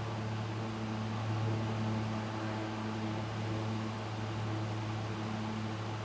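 A steady low hum with evenly spaced overtones over a constant hiss: background machine or electrical hum.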